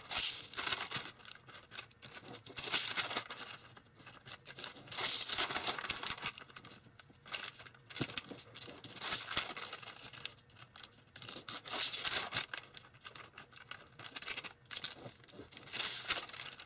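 A sheet of tissue foil (tissue paper glued onto kitchen foil) crinkling and rustling as it is folded and pressed into creases by hand, in repeated bursts with short pauses between.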